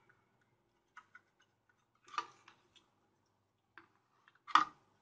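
Sparse sharp clicks and light knocks from a desoldered electrolytic capacitor being pulled off a monitor power board and the board being handled on the bench. The loudest knock comes near the end.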